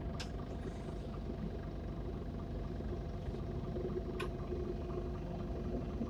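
Mitsubishi Fuso PJ-MP37JK city bus's diesel engine idling steadily: a low rumble with a steady hum. Two short clicks sound, one near the start and one about four seconds in.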